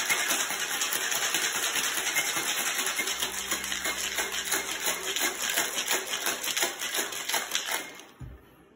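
Ice cubes rattling inside a cocktail shaker shaken hard and fast, a quick steady clatter that stops about eight seconds in.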